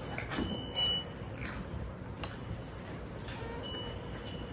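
Kittens eating from a stainless steel bowl, with small clicks and clinks of food and teeth against the metal. A few short, high ringing tones sound through it, twice fairly clearly.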